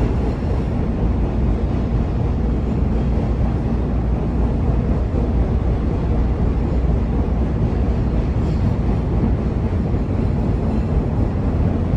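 CTA Orange Line train running on the rails between stations: a steady low rumble of wheels on track, with no breaks or sudden events.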